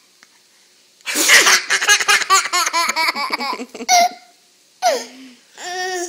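Toddler laughing: after a quiet first second, a loud, rapid run of laughter lasts about three seconds, followed by two short laughs near the end.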